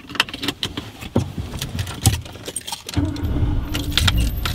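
Jangling keys and clicks from a car seatbelt being pulled across and buckled. About three seconds in, the car's engine starts and keeps running with a steady low rumble.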